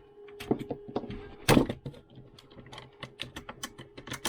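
Quick clicks and knocks of an ICS CXP APE airsoft electric gun being taken apart by hand to reach its spring, with a louder knock about a second and a half in.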